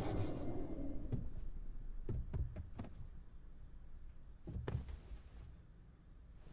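A noisy swell fades over the first second, then come a few soft knocks and thuds, three or four close together between one and three seconds in and a stronger thump near five seconds in.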